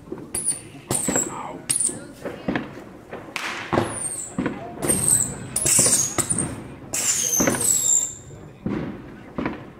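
A firework cake of baby whistling rockets firing in rapid succession: many short, high whistles, each falling a little in pitch, mixed with sharp pops and cracks.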